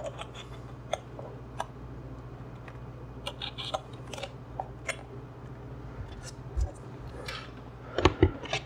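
Hobby knife cutting and scraping EPP foam in short, irregular strokes, giving small scratchy clicks and crackles. A louder knock or two comes near the end.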